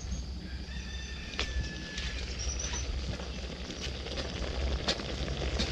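Firewood cooking fire under a pot, with scattered faint crackles and clicks over a steady low rumble.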